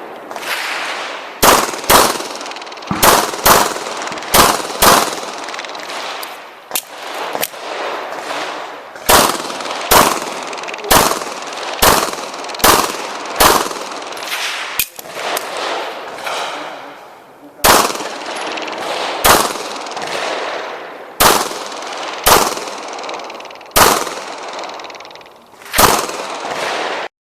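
A semi-automatic pistol fired in a rapid string of about two dozen shots during a USPSA stage, mostly in quick pairs about half a second apart, each shot followed by echo. The sound cuts off suddenly just before the end.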